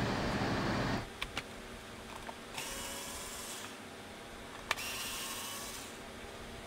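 Cordless electric screwdriver running in two short bursts of about a second each, backing screws out of a vacuum cleaner's plastic base to free the bumper, with a few light clicks before the first run.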